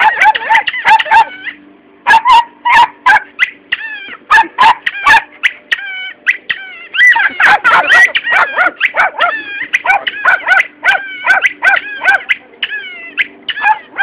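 A small dog barking and yipping in rapid runs of short, high-pitched barks, with a couple of brief pauses.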